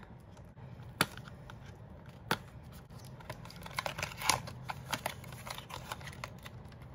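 Cosmetics packaging being opened and handled by hand: two clicks about a second and two seconds in, then a run of small clicks and crinkles.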